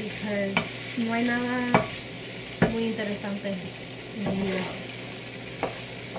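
Food sizzling in a frying pan while it is stirred with a wooden spatula, with several sharp knocks of the spatula against the pan. Between the knocks come a few short, low held tones, like quiet humming.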